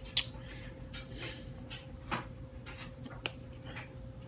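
Italian dressing shaken from a plastic bottle over a rack of raw ribs in a metal sheet pan: a few light clicks and taps of the bottle with a brief faint pour, over a steady low hum.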